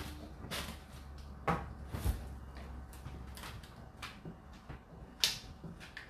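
Whirlpool WFO3P33DLXUK dishwasher in its 65 °C main wash: a steady low hum from the running machine under irregular knocks and splashes from inside the tub, the sharpest a little after five seconds in.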